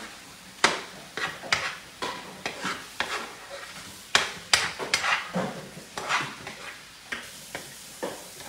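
A utensil scraping and tapping in a skillet of browning ground chuck and chorizo as it is stirred and broken up, in irregular strokes about two a second, over a light sizzle from the simmering meat.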